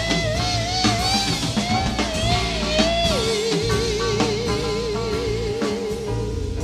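Female jazz vocalist singing a long drawn-out phrase with wide vibrato, sliding around the upper note and then dropping about three seconds in to a lower note that she holds, accompanied by piano, bass and drum kit. Live recording played from cassette tape.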